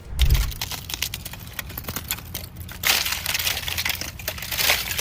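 Dense crackling and crunching, with a low thump right at the start and a louder, hissier stretch of crackling from about three seconds in.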